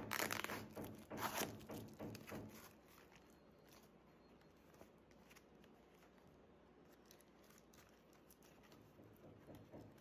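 Brown kraft-paper courier envelope being torn open by hand: two loud rips within the first second and a half, then quiet crinkling of the paper as it is pulled apart.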